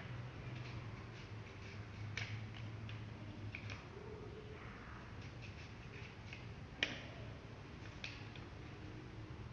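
Scissors snipping paper: a series of sharp clicks, the loudest about seven seconds in.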